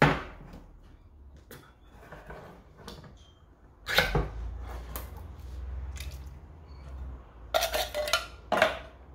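Spoon scraping crushed pineapple out of a tin can into a stainless steel saucepan, with sharp metal clinks at the start, about four seconds in, and a few more near the end.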